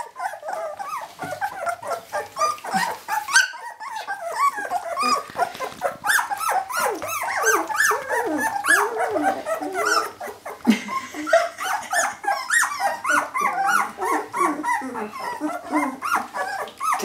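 A litter of young jämthund (Swedish elkhound) puppies whining and yelping together, a steady chorus of short, overlapping high squeals.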